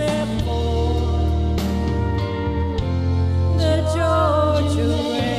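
A woman singing a country song into a microphone over a karaoke backing track.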